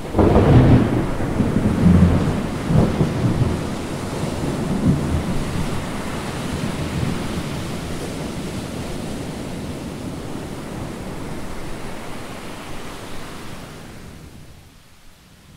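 Thunderstorm: a few low rumbles of thunder in the first five seconds over a steady hiss of rain, which fades out near the end.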